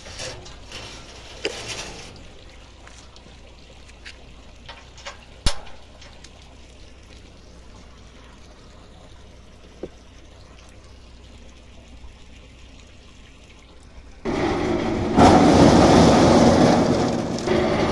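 Carrot washing machine: a few scattered knocks and clicks at first, then about 14 seconds in a loud, steady rush of water and tumbling carrots begins as washed carrots pour out of the washer's drum.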